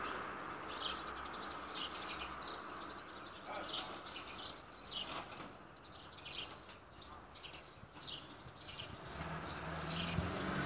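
Pet budgerigar chirping softly: many short, high chirps in quick succession with brief pauses between them, over a faint steady background hum.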